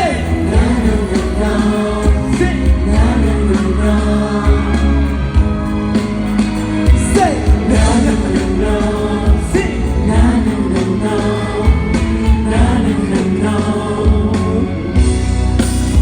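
Thai pop song with a heavy, steady beat and sung vocals.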